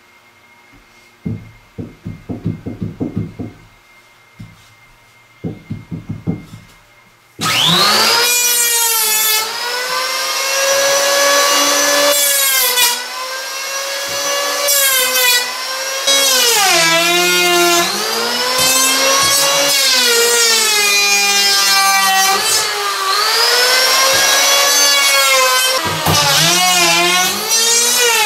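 A few short bursts of knocking, then about seven seconds in a handheld disc power tool starts and runs loud, cutting into the wooden shower framing; its motor pitch sags and recovers again and again as the disc bites into the wood.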